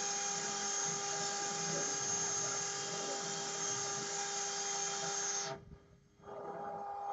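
CNC router's spindle running with a steady high whine over a rushing hiss, typical of a router spindle at speed. The sound drops out abruptly about five and a half seconds in and comes back about a second later.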